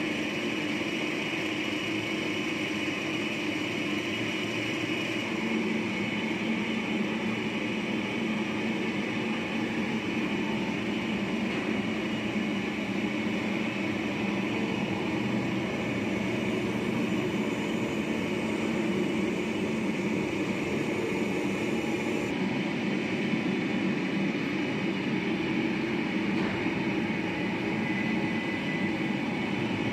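CNC lathe running at work on metal: a steady machine drone with a hiss over it, even throughout.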